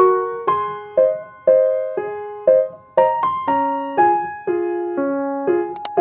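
Background piano music: soft electric-piano chords and notes struck about twice a second, each ringing and fading. A brief sharp click just before the end.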